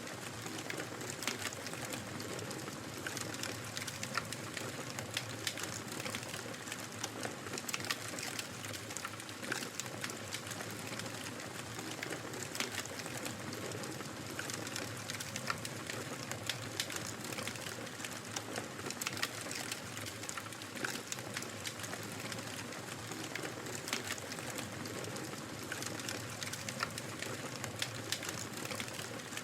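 Wood fire crackling in a fireplace: a steady hiss of flames with frequent small, irregular pops and snaps.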